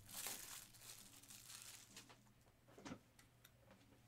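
Faint crinkle of a plastic card sleeve as a trading card is slipped into it, with a soft click about three seconds in.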